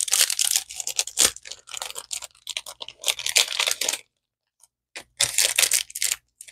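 Packaging of a pair of earrings crinkling and tearing as it is opened by hand, in a dense run of short rustles that stops for about a second, then starts again.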